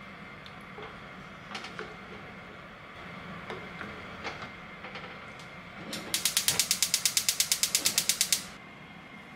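Cooking utensils knocking now and then against a stainless steel pot of cream stew during stirring. About six seconds in comes a loud, rapid run of sharp clicks, about seven a second, lasting a little over two seconds.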